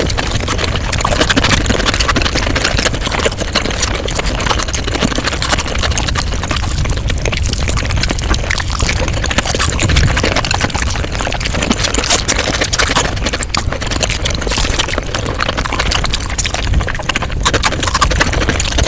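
Mukbang eating sounds sped up five times: a continuous, dense run of rapid mouth clicks from chewing and eating.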